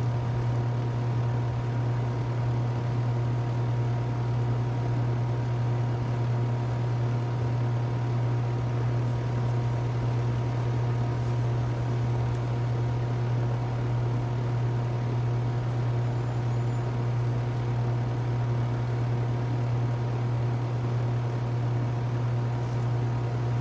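2017 two-ton Rheem Classic RP14 heat pump running steadily in cooling mode: a strong, constant low hum with an even rush of air over it.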